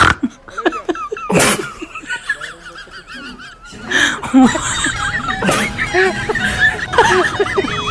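Comic sound-effect track: laughter with four sharp sneeze-like bursts about a second and a half apart, over light music.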